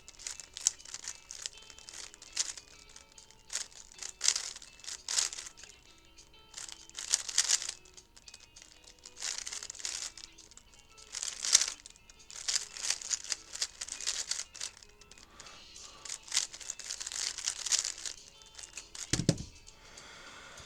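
3x3 speedcube being turned rapidly: bursts of fast plastic clicking and clacking as the layers rotate, with short pauses between turning sequences. A single low thump near the end.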